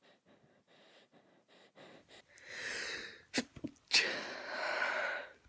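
A woman's sneeze build-up. Short, quick breaths lead into a long drawn-in breath and a couple of sharp catches, then a loud, breathy sneeze about four seconds in with a long release.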